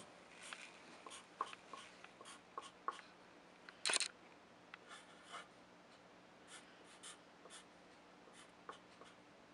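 Marker drawing on paper in many short, quick scratching strokes, the loudest a longer stroke about four seconds in, with another run of strokes near the end as letters are written.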